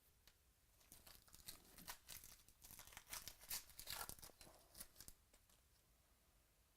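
Faint tearing and crinkling of a trading-card pack wrapper being opened, a run of quick crackles from about a second in until about five seconds in.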